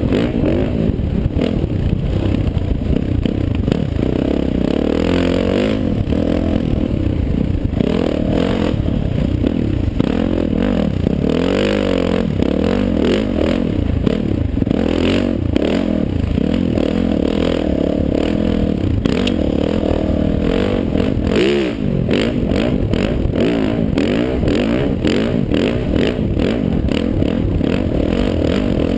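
Dirt bike engine ridden hard, revving up and down with the throttle, with clatter and knocks from the bike over the rough sandy trail. About two-thirds of the way through the throttle is briefly chopped, then the revs rise again. Heard from a helmet-mounted camera.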